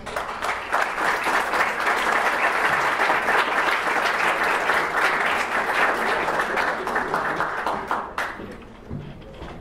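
Audience applauding, a steady spatter of many hands clapping that dies away about eight seconds in.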